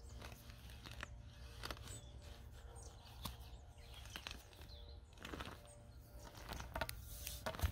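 Faint crackling and crunching of dry soil and small roots as a homemade broadfork's steel tines are pushed into the ground underfoot and then levered back. The crackles come thicker near the end, as the clod tears loose.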